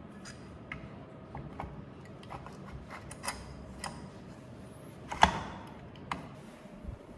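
Scattered light clicks and taps of small parts being handled as a belt sander's roller set is fitted, with one louder knock and a short ring about five seconds in.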